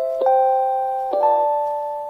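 JR Hokkaido train's chime for visually impaired passengers: clear electronic notes stepping upward, a new note about a quarter second in and another about a second in, each ringing on and fading slowly.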